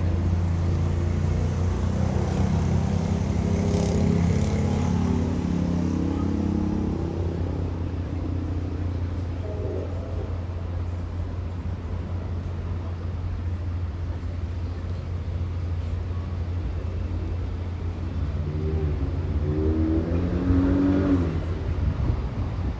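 Diesel locomotive engine running with a steady low rumble. Its note shifts in pitch for a few seconds early on and again near the end.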